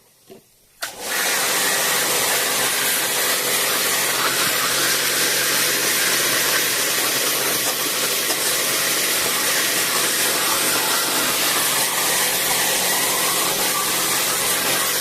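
Electric high-pressure washer switched on about a second in, its motor humming steadily under a loud hiss of water spray as it rinses out an air conditioner.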